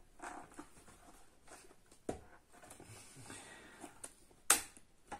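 Plastic helmet-mount parts being handled and fitted onto a motorcycle helmet: faint rustling with two sharp clicks, one about two seconds in and a louder one near the end.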